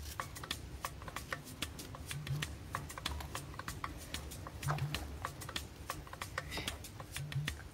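Knife peeling and cutting green cooking bananas: quick, irregular crisp clicks and scrapes of the blade through the peel, over faint background music with a low bass line.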